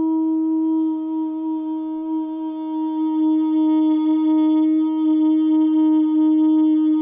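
A man's voice holding one long "hooo" note at a single steady pitch, growing a little louder about halfway through.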